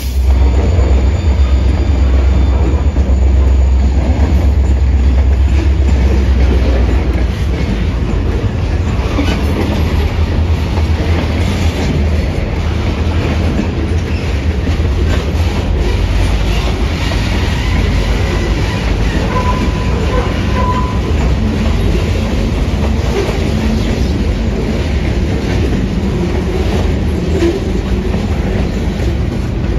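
Freight train cars rolling past: a tank car, lumber-loaded centerbeam flatcars and boxcars, with wheels clicking over the rail joints. A heavy deep rumble eases after about seven seconds.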